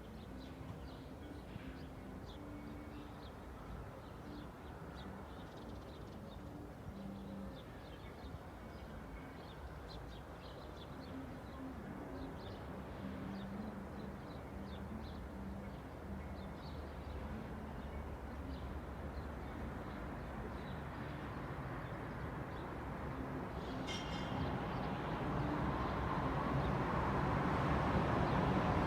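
Suburban street ambience: small birds chirping over a low hum of distant traffic, then a vehicle approaching and growing steadily louder through the last several seconds.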